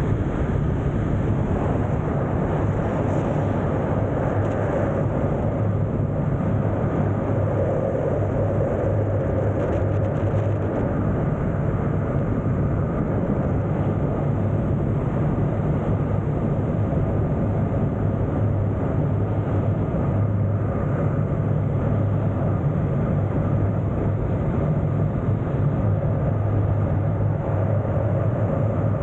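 Wind rushing over the microphone of a camera carried in wingsuit flight: a loud, steady, unbroken rush of airflow.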